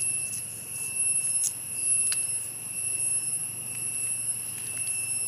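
Steady high-pitched insect drone in the forest, a continuous even whine with no pulses, with a few faint clicks.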